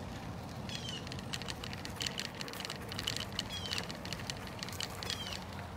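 Bicycle tyres crunching along a dirt and gravel track with a steady low rumble. A bird gives a short downward-slurred call three times.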